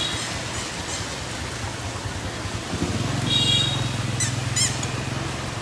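Street traffic noise: a motor vehicle's engine running steadily from about three seconds in, with a short high horn toot and two quick high squeaky chirps just after it.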